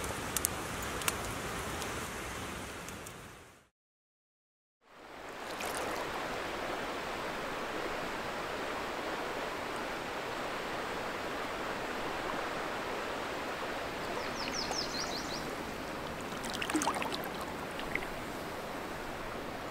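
A campfire crackles a couple of times over a steady hiss of rain. After a short silence, a steady rush of water runs along a paddled canoe, with a few splashy paddle strokes and small clicks near the end.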